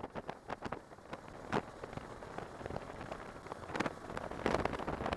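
Wind buffeting the microphone of a motorcycle being ridden, in irregular gusts with riding noise underneath; the buffeting gets louder near the end.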